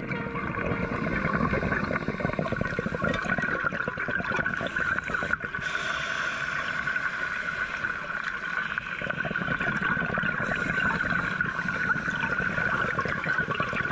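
Underwater ambience on a scuba dive: a dense, steady crackle with gurgling water.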